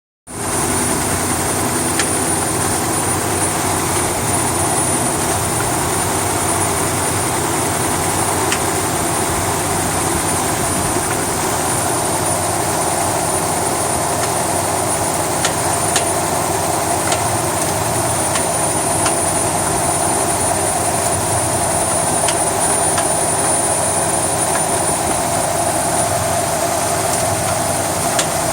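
1971 Chevrolet El Camino's 350 small-block V8 idling steadily, with sharp clanks at irregular intervals. The clank is an unidentified noise the owner is seeking help with.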